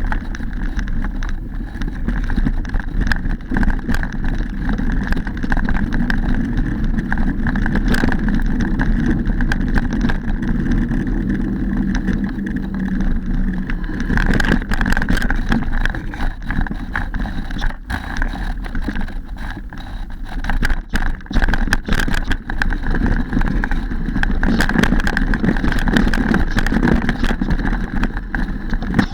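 Mountain bike ridden over a dirt trail: a steady rumble of tyres on the ground, with frequent rattles and knocks from the bike as it goes over bumps.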